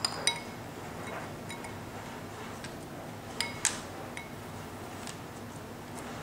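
Sharp clinks with a brief ring, an ice cube knocking against a hard surface as a puppy noses and mouths it: two close together at the start, two more about three and a half seconds in, and a few fainter ticks between.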